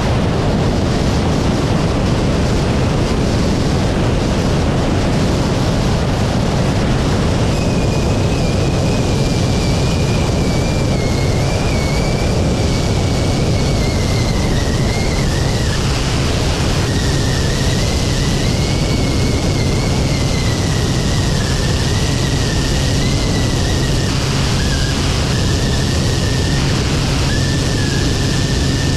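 Quest Kodiak's PT6A turboprop engine and propeller in cruise flight, a steady loud drone with a low hum, heard from an outside wing-mounted camera so the rush of wind over the microphone is mixed in. A thin, wavering high whistle comes in about eight seconds in.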